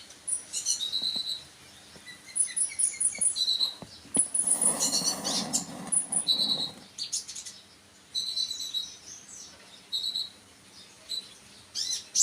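Small songbird chirping in quick, high, repeated phrases of short notes and brief trills, bird song of the kind played to make a kept kolibri ninja (konin) answer. A rustling noise runs from about four to seven seconds in.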